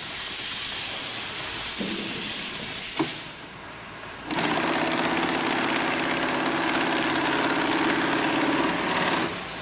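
Industrial overedge sewing machine for big-bag (FIBC) fabric running at speed as the fabric is fed through and its edge is stitched. It stops about three seconds in, starts again about a second later and runs until just before the end.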